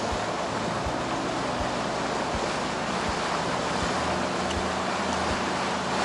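Wind buffeting the microphone and the sea washing around a fishing boat, over a steady low hum from the boat with a faint regular pulse under it.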